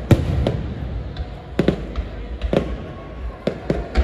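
Aerial firework shells bursting in the sky: a run of sharp bangs, about half a dozen in four seconds, with a low echo between them.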